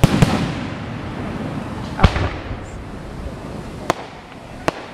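Aerial firework shells bursting: two booms close together at the start and another about two seconds in, each rumbling on briefly afterwards, then two sharper cracks near the end.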